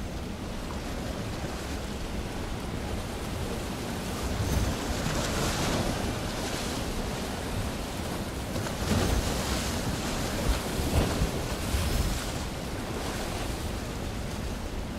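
Wind buffeting the microphone: a steady rushing with low rumble, swelling in gusts about four seconds in and again from about nine to twelve seconds.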